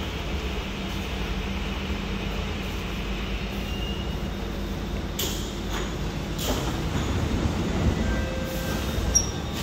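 Alstom Movia R151 metro train standing at the platform with a steady low hum. About five seconds in come a few short, sharp noises as its doors and the platform screen doors slide open.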